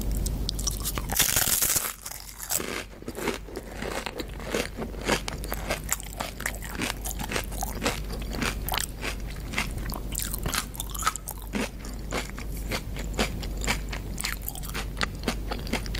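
Tortilla chips being bitten and chewed: a loud crunching bite about a second in, then a long run of small, sharp crunches as the chips are chewed.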